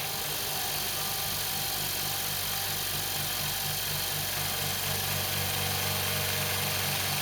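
Rocwood 2 hp oil-free air compressor running steadily, with an even, pulsing hum as it pumps up its 50-litre tank.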